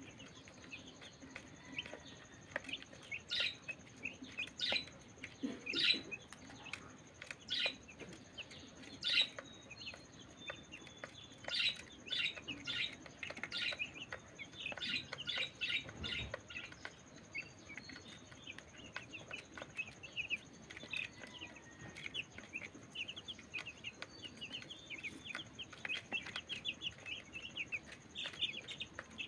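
Young chicks peeping as they feed, short high peeps scattered at first and coming in quick runs in the second half.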